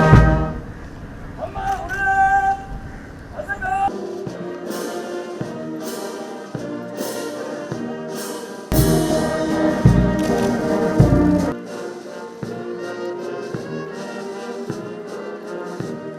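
Brass band music with drum beats: horns and trumpets holding notes over a steady percussion beat.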